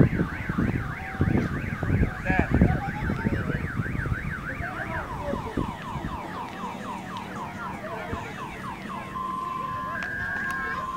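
An electronic siren cycling through its patterns: a fast up-and-down warble, then rapid repeated rising whoops, then a two-tone hi-lo alternation near the end, with people talking in the first few seconds.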